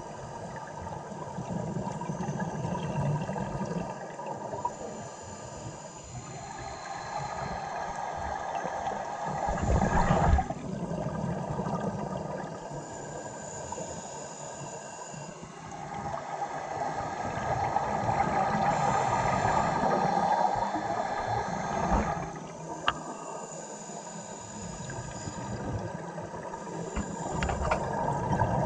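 Scuba diver's regulator breathing underwater: slow cycles of a hissing inhale and a rush of exhaled bubbles, swelling and fading every several seconds.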